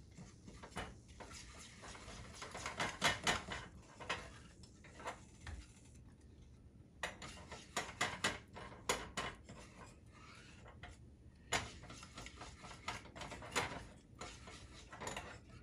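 Silicone spatula stirring and scraping around a small nonstick saucepan, a loose run of soft scrapes and light taps against the pan, as a thick flaxseed and olive oil sauce is mixed and gently warmed.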